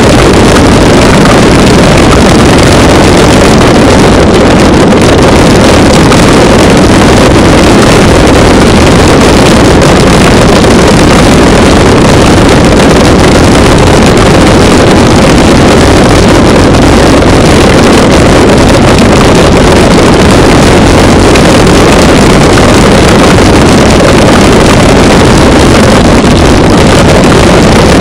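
Loud, steady rumble of wind and vibration on a handlebar-mounted action camera's microphone as a mountain bike rolls over a rocky dirt trail.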